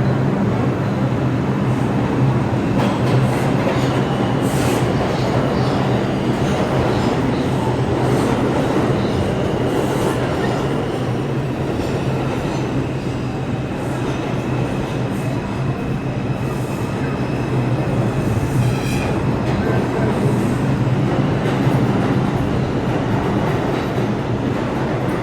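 R142 subway train running between stations, heard from inside the car: steady rumble of wheels on rail over a low hum, with scattered clicks and a faint high-pitched wheel squeal now and then.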